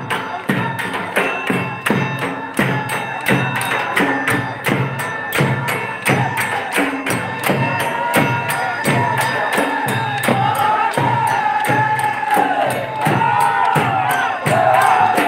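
Loud music with drums and jingling percussion keeping a steady beat. A high, wavering melody comes in about six seconds in.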